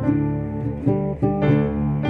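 Background music played on acoustic guitar, with plucked notes and chords changing every few tenths of a second.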